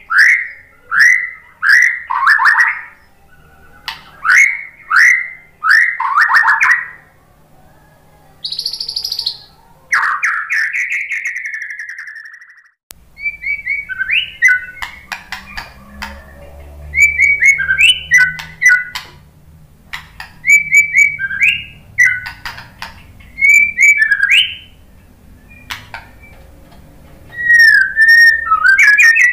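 White-rumped shama (murai batu) singing: runs of short, loud rising notes about two a second, then a brief high buzzy note and a long falling whistle, followed by repeated two-part whistled phrases.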